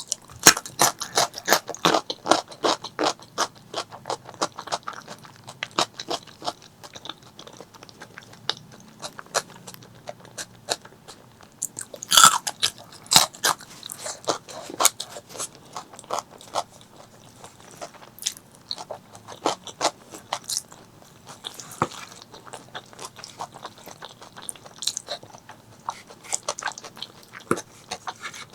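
Close-miked eating sounds: a person chewing and crunching mouthfuls of spicy pork leg curry with white rice. Rapid wet clicks come thickly in the first few seconds, and there is a loud crunch about twelve seconds in.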